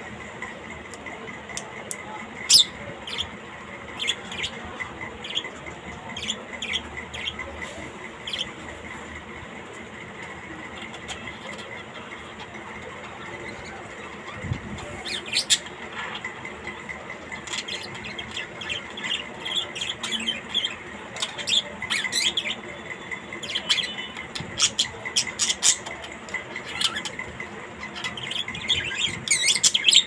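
A caged parrot giving short squawks and chirps, scattered at first and coming thicker and faster from about halfway through.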